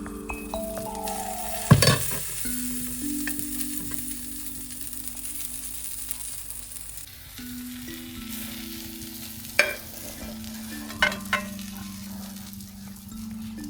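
Food frying in a pan with a steady sizzle that eases about halfway through. There is a sharp knock of a utensil against the pan a couple of seconds in, and three more knocks in the second half.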